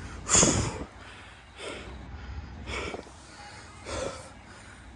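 A cyclist breathing hard from the effort of climbing uphill: four heavy, noisy breaths, the first the loudest.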